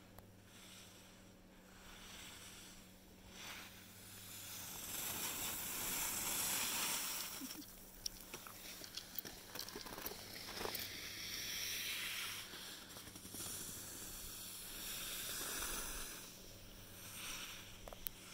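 Skis hissing and scraping over groomed snow as the filming skier follows down the slope, the noise swelling and fading in waves, with a few sharp clicks and wind on the microphone. The first few seconds are quieter, before the run picks up speed.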